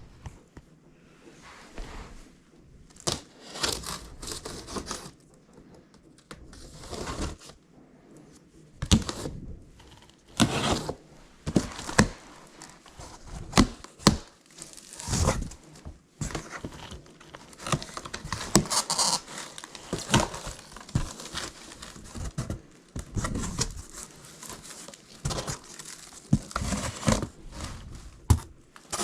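A cardboard shipping box being opened by hand: packing tape tearing, cardboard flaps and packing material crinkling, with irregular knocks and thuds as the contents are handled.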